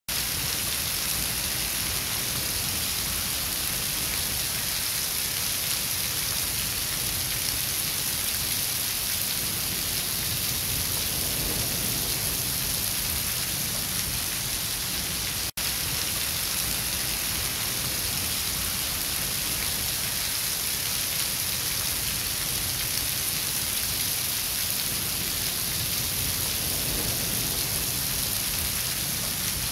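A thin stream of water pouring off a concrete wall and splashing onto the ground, a steady splashing hiss. It cuts out for an instant about halfway through.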